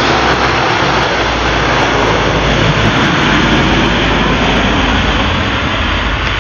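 Lockheed C-130 Hercules four-engine turboprop climbing away overhead: a loud, steady drone of engines and propellers with a low hum underneath, beginning to fade near the end.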